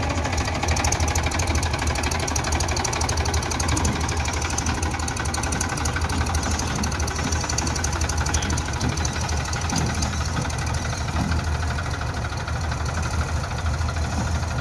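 Massey Ferguson 241 DI tractor's diesel engine running steadily under load as it pulls a trolley up out of a muddy pit, a fast even diesel clatter, with the backhoe loader's diesel running alongside.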